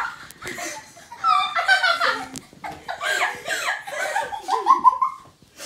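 Girls laughing loudly in several bouts, with a little talk mixed in.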